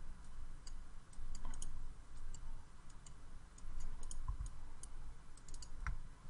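Computer mouse and keyboard clicks: scattered, irregular single clicks over a low steady background hum.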